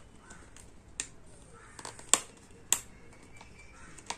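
Sharp plastic clicks and taps as a helmet visor is pressed and worked onto its side pivot plate, the loudest two a little past two seconds in.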